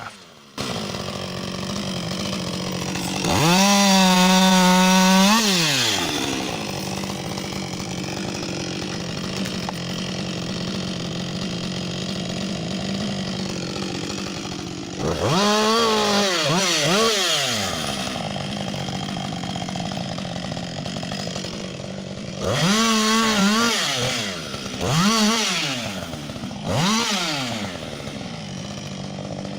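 Chainsaw idling and revved to full throttle about five times, each time rising in pitch, holding for one to three seconds and dropping back, as it cuts through a log.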